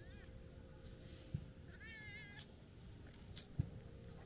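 A cat mewing: the tail of one high, wavering mew at the very start and a second short, high mew a little before halfway. Two dull thumps fall around the second mew, one just before it and one near the end.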